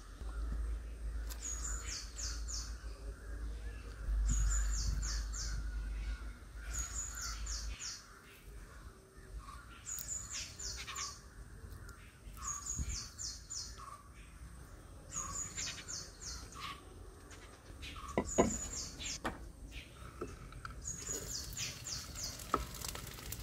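A bird repeating a short call of three to five quick high notes, each dropping in pitch, about every two seconds, with fainter bird chirps behind it. A low rumble runs under the first several seconds, and a single sharp knock sounds about eighteen seconds in.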